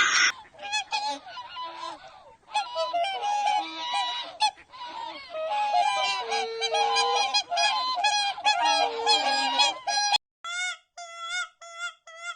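A flock of birds calling over one another in short honking calls. About ten seconds in, after a cut, one animal gives short pitched calls in quick succession.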